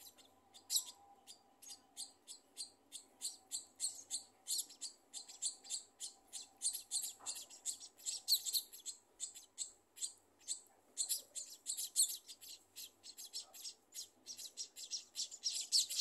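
Scaly-breasted munia nestlings begging for food: a rapid, continuous series of short, high-pitched cheeps, several a second, as the parent feeds them in the nest.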